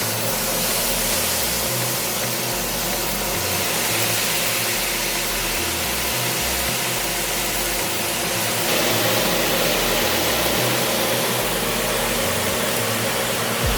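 Steady hiss with a low hum from the stove, where vegetables are frying in hot pots. It gets a little louder about nine seconds in.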